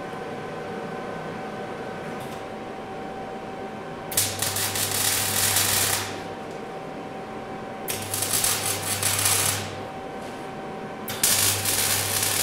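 Electric welding arc crackling in three short bursts of about two seconds each, with a low hum under each burst: short tack or stitch welds on steel brackets.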